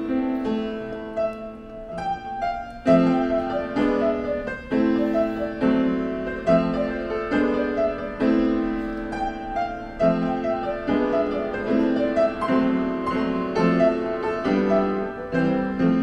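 Upright piano being played: a slow melody over chords, the notes struck and left to ring, with the loudest chord about three seconds in.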